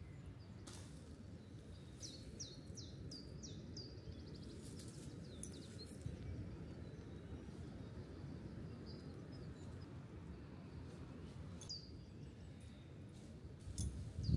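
A small songbird sings runs of quick, high, falling notes, about two seconds in and again near the end, over a faint, steady low outdoor background noise. A few soft knocks come between the phrases.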